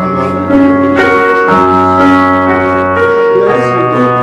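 Keyboard playing slow, sustained worship chords, the held notes moving to new chords every second or so.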